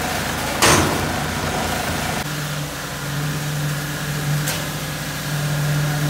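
Engine of construction machinery running steadily with a low hum, its tone changing about two seconds in. A short, loud burst of noise comes just under a second in.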